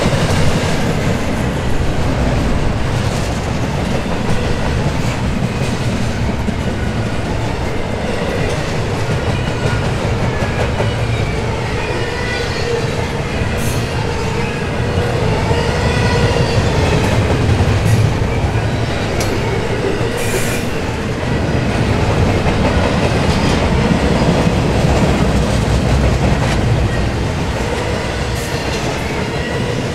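Double-stack intermodal container cars rolling past at speed: a steady rumble of steel wheels on rail with clickety-clack, and thin wavering wheel squeal over it.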